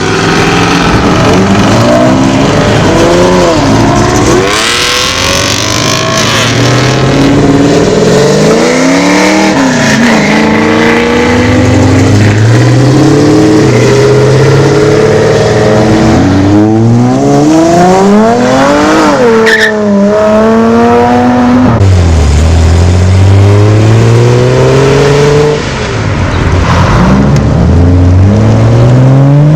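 A car engine revved hard over and over, its pitch climbing steeply and dropping again as it accelerates away, with tyre squeal under it. The hardest rev peaks about two-thirds of the way through.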